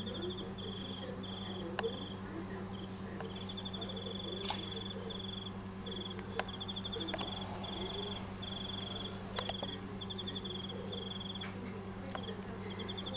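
Crickets chirping in short high trills, about two a second, over a steady low hum.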